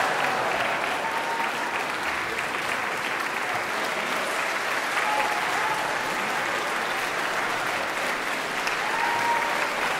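Large audience applauding steadily, a dense, even clapping with no break.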